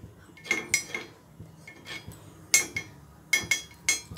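Metal spoon clinking against a paniyaram pan as ghee is dropped into its cups. The sharp, ringing clinks come irregularly, several in quick succession, about eight in all.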